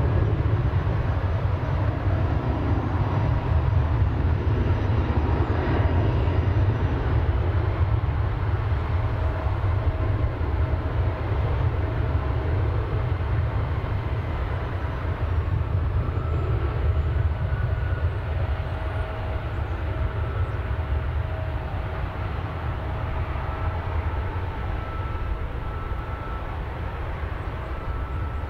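Jet airliner engine noise: a steady deep rumble with a faint whine, slowly fading.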